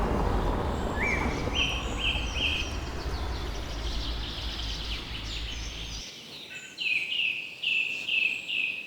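Birdsong over outdoor background noise. A bird repeats a short whistled note about two and a half times a second, in a run of about four notes and then a run of five, with fainter high chirps between. The background noise fades and its low rumble cuts off about six seconds in.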